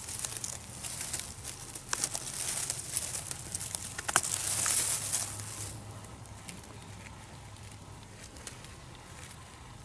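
Rustling and crackling of dry pine needles and forest litter as a hand reaches into a cluster of scalycap mushrooms and cuts one, with two sharp clicks about two seconds apart. The rustling dies down after about six seconds.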